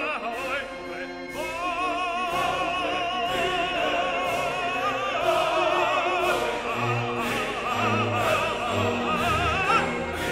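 Background music: opera-style singing with strong vibrato over an orchestra, with light percussion hits keeping a steady beat.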